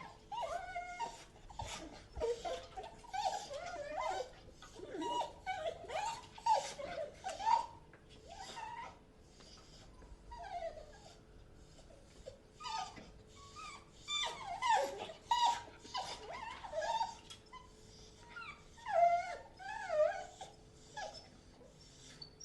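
A dog whimpering and whining: a string of short, high-pitched whines that bend up and down in pitch, coming in irregular bunches with brief pauses between.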